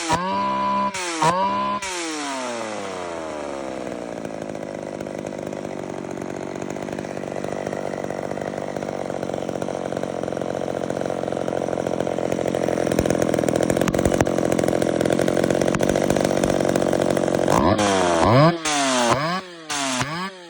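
Hot-rodded McCulloch Pro Mac 55 two-stroke chainsaw, blipped through a couple of quick revs. It then holds a steady, dense running note for about fifteen seconds that slowly grows louder, and is blipped again in quick revs near the end.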